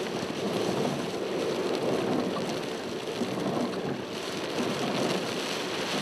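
Strong wind and rain around a car driving on a road, heard from inside the vehicle as a steady rushing noise mixed with road noise. The wind is the inflow wrapping around a tornadic storm's mesocyclone.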